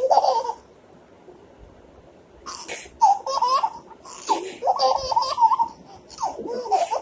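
Baby laughing in repeated breathy bursts of giggles, starting a couple of seconds in, after one short outburst at the very start.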